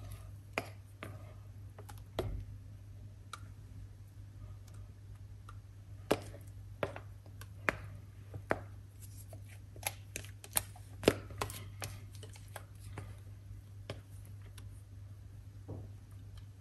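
Kitchen utensil scraping and knocking against a mixing bowl as fruit cake batter is scraped out into the cake tins: irregular clicks and taps, thickest in the middle of the stretch, over a low steady hum.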